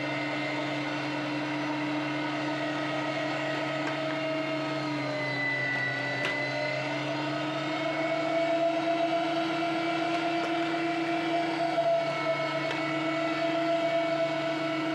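LEM #8 electric meat grinder running steadily under load, its auger forcing partly frozen pork through the grinding plate. The pitch sags slightly now and then as the meat loads the motor.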